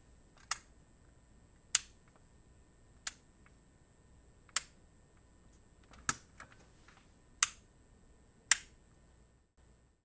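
Toggle switches on a 12-volt lighting panel being flipped one after another: seven sharp clicks, roughly one every second and a half, with a fainter click just after the fifth.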